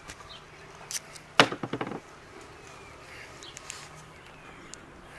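Yellow tape pulled off its roll in a short rasping tear about one and a half seconds in, while a chicken's bandaged foot is wrapped.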